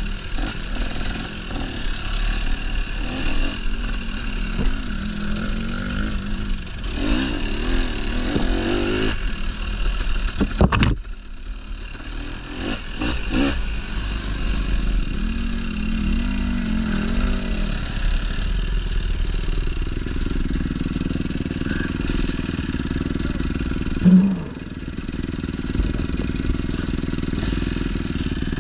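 Dirt bike engine running under way, its pitch rising and falling as the throttle is worked. A sharp knock comes about eleven seconds in and a brief loud thump about twenty-four seconds in.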